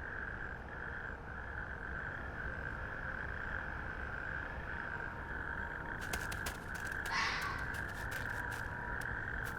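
Steady high-pitched night ambience with one harsh animal call, like a crow's caw, about seven seconds in. Rapid faint clicking runs through the last few seconds.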